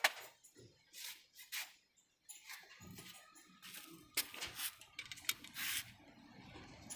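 Scattered scrapes, clicks and rustles of hand work, irregular and fairly quiet, with a short pause about two seconds in and longer scraping noises near the middle.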